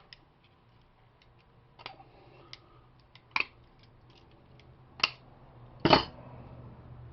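Scattered sharp clicks and clinks of small metal outlet parts and screws being handled. There are about five, with the loudest, a duller knock, near six seconds in, after which a low steady hum sets in.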